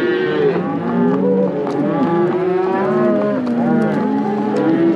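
A herd of cattle mooing, many animals calling over one another without a break.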